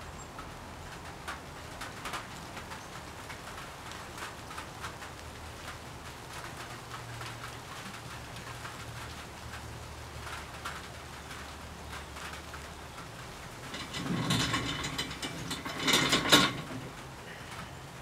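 Paintbrush bristles tapping and dragging on a canvas: faint scattered ticks over a low steady hum that stops about two-thirds of the way through. Near the end come two louder, rough scraping bursts, the second the loudest.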